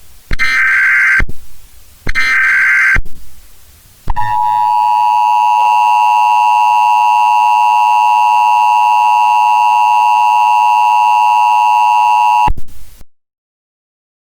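Emergency Alert System broadcast tones: two one-second bursts of the SAME header's buzzy digital data tones, then the EAS attention signal, a loud steady two-note electronic tone held for about eight seconds that cuts off abruptly.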